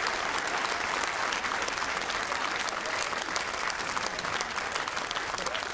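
A theatre audience applauding, dense steady clapping that starts to thin out into separate claps near the end.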